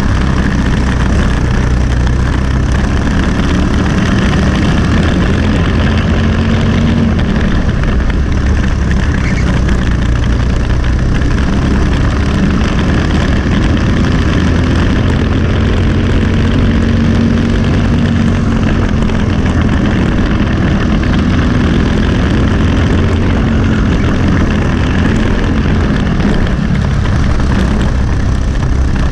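Briggs & Stratton LO206 four-stroke single-cylinder kart engine running at race pace, heard onboard, its note rising and falling slightly with the throttle. A steady rush of wind noise runs under it.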